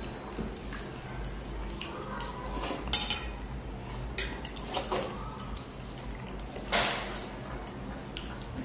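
Fingers mixing and scooping rice across a stainless steel plate: scattered scrapes and light clinks on the metal, with a sharp click about three seconds in and a longer, louder scrape near the end.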